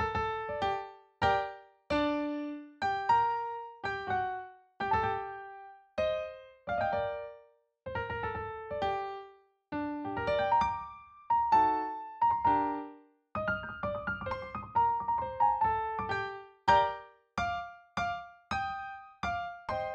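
Piano music played back from MIDI input: a slow melody of separate notes and small chords, each struck and left to die away, with brief pauses between phrases.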